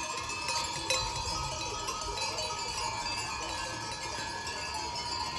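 Many livestock bells jingling and clanking together without a break, from grazing animals moving past.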